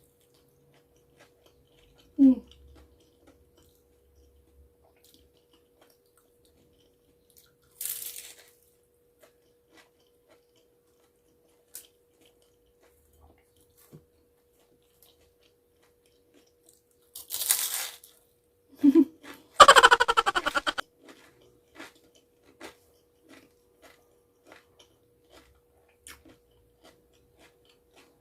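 Close-miked eating of crispy fried lumpia-style rolls: a few crunchy bites and quiet chewing with small mouth clicks. A short vocal sound, like an 'mm', is the loudest moment about twenty seconds in, over a faint steady hum.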